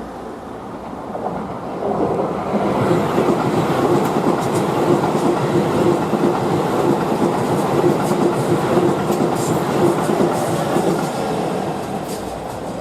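Keisei electric commuter train passing: the sound builds over the first two seconds, runs loud with a steady hum and wheel clicks over the rail joints, then fades near the end.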